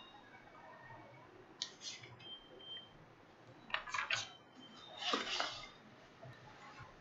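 Paper pages of a printed book being handled and turned: a few short rustles and crinkles, the longest and loudest about five seconds in.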